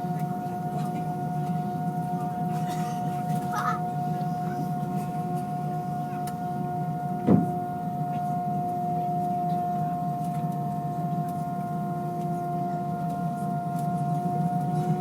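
Airbus A320 cabin noise: the IAE V2500 engines and airflow make a steady low rumble with a held whine over it. A single sharp knock comes about seven seconds in, and the whine starts rising slightly in pitch near the end.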